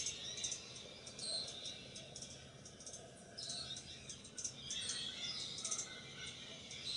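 Hummingbird chirping: faint, sharp, high chip notes in several short runs.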